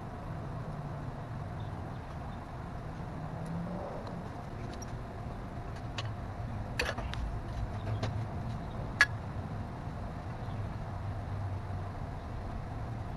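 A few light clicks and taps of hands handling small parts in a car's engine bay, the sharpest about nine seconds in, over a steady low hum.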